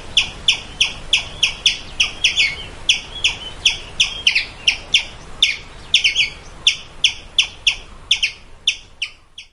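Squirrel calling: a long run of short, sharp, high calls, about three a second, that stops just before the end.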